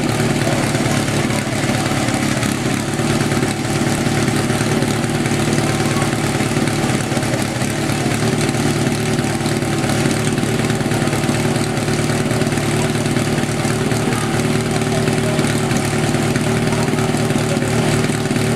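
Small engine of a portable fire pump idling steadily before the start of a firefighting-sport attack, with a murmur of voices underneath.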